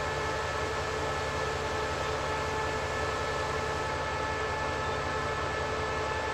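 Idling GE diesel-electric locomotive standing still: a steady low engine rumble with a constant whine of several high steady tones over it.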